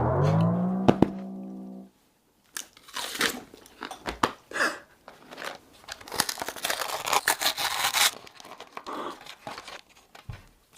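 A loud pitched sound effect that slides up in pitch and holds for about two seconds, then cuts off suddenly. After a short gap come irregular crinkling, tearing and crunching noises, as of a food wrapper being torn open and handled while food is eaten.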